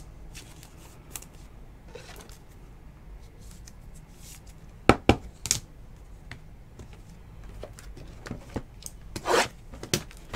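Hands handling trading cards and rigid plastic card holders (toploaders): soft rubbing and sliding, with a few sharp plastic clicks about five seconds in as holders are set down, and a brief rustle near the end.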